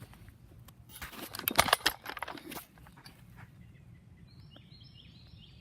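A cluster of crunching, scuffing noises about a second in, then faint high chirping in short repeated notes near the end.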